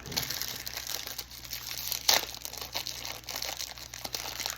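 Foil Pop-Tarts wrapper crinkling and tearing as it is pulled open, with many small crackles and one sharp, loudest rip about two seconds in.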